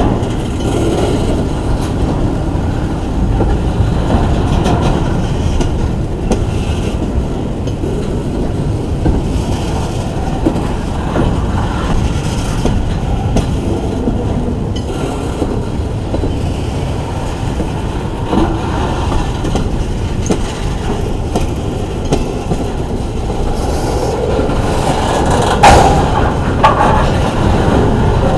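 Intermodal freight train rolling by at low speed: a steady rumble of wheels on rail with clicks over the joints. Near the end comes a louder sharp clank and a brief wheel squeal.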